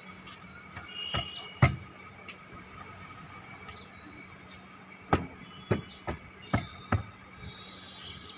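Foam mattress cushions being set down and pressed onto a plywood bed platform in a car's cargo area, giving sharp knocks and thumps: two about a second in, then five more in quick succession past the middle. Short high chirps sound in the background.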